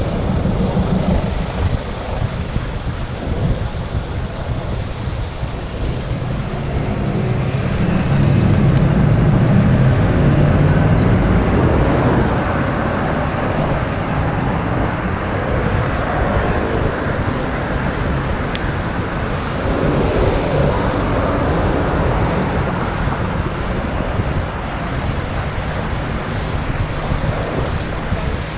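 Wind rumbling on a GoPro Hero5's built-in microphone over outdoor traffic noise, swelling louder from about eight to twelve seconds in.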